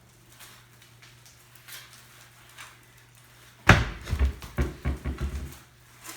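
A BMX bike coming down: a sudden loud bang about three and a half seconds in, then a run of low thumps for about two seconds.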